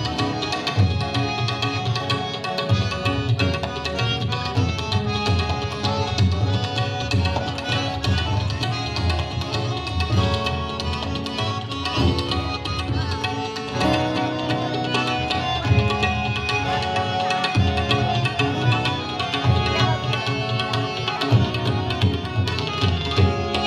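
Instrumental interlude of Indian music: tabla keeping a rhythm under sustained melodic instrument tones, with no singing.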